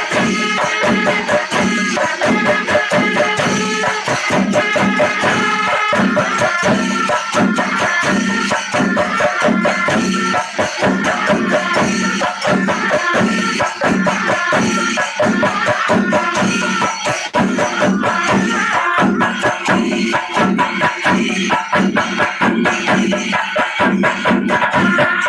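Pandimelam chenda melam ensemble: many chenda drums beaten fast with sticks in a dense, driving rhythm, with ilathalam cymbals jingling and wind instruments holding notes above the drums.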